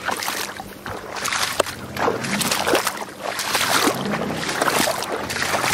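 Footsteps sloshing and splashing through shallow muddy water, a string of uneven steps.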